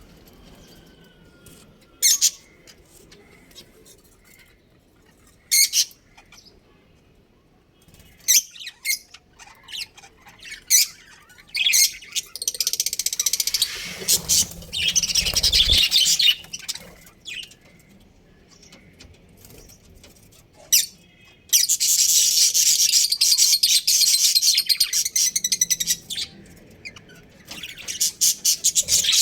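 Budgerigars chirping: sharp single chirps spaced a few seconds apart, then two long runs of rapid, high chatter, with a brief low rumble near the middle.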